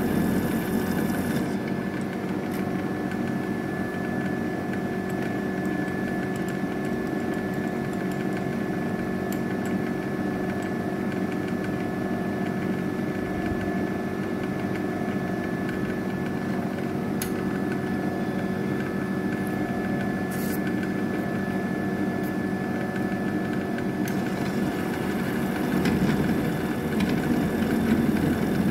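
Milling machine running steadily, its motor and spindle giving a constant whine over a hum. A deeper rumble grows louder near the end.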